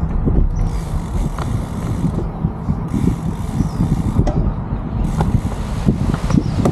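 Riding noise from a bicycle on a paved path: an uneven rumble of wind on the microphone mixed with the bike's rattle, going on without a break.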